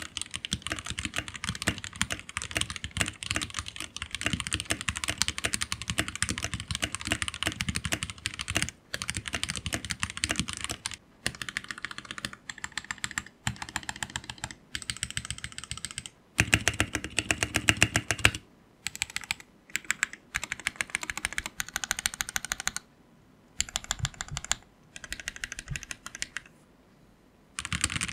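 Typing on a mechanical keyboard fitted with tall SA profile keycaps, a thocky keystroke sound with noticeable hollowness. Continuous fast typing gives way to shorter runs of keystrokes separated by brief pauses, with a louder burst of rapid presses midway.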